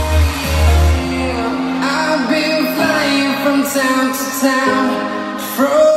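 Pop song with singing. A heavy bass line drops out about a second and a half in, leaving the voice over lighter backing.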